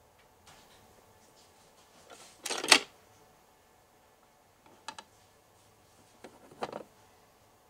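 Small handling noises from miniature kitchen pieces being worked by hand: a crackly cluster of clicks about two and a half seconds in, the loudest, then a couple of short clicks near five seconds and another small cluster near the end.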